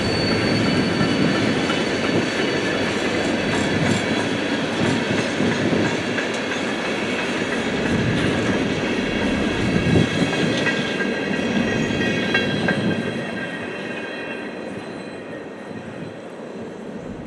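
Freight cars rolling past on the rails: wheel and coupler clatter with a thin, steady wheel squeal. The sound fades away over the last few seconds as the end of the train pulls off.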